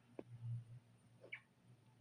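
Near silence: room tone with a faint low hum and a couple of soft clicks.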